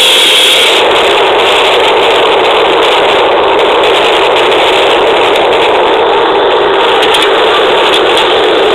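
Loud, steady wash of dense noise with no clear pitch, mostly mid-range with little high end, played back from a microcassette tape.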